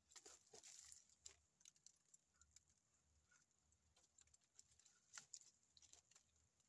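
Very faint, scattered crackling and scraping: a short cluster in the first second, then irregular small clicks, as a man bends against a tree trunk and scrapes at its bark with his teeth, shifting in dry brush.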